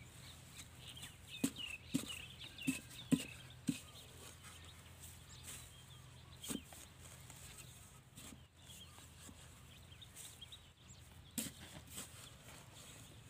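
Metal digging bar knocking and scraping into hard, dry soil while a crab burrow is dug out: a quick run of about five knocks in the first few seconds, then single knocks later. Faint bird chirps over the first few seconds.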